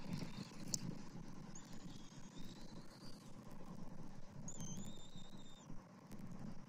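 Thin, high whistled bird calls, each note held for about a second, over a steady low rumble of outdoor noise.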